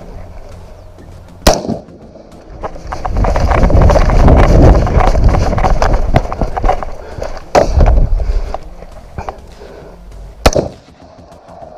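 Three rifle shots: about a second and a half in, near eight seconds, and just past ten seconds. Between the first two shots there is a long, loud stretch of rustling and scuffing.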